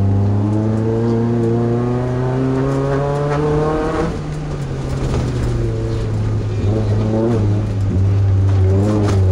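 Off-road race truck's engine under hard acceleration, its pitch rising steadily for about four seconds, then falling sharply and pulling again at lower revs with small rises and dips.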